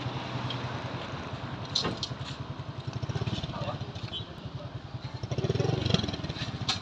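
Street noise dominated by a motorcycle engine running, a steady pulsing rumble that grows louder about five seconds in.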